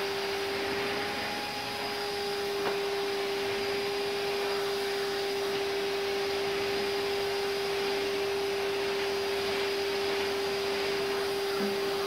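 Numatic George wet-and-dry vacuum running steadily, its motor whining at one pitch over a rush of air, as the floor tool draws water up off artificial grass.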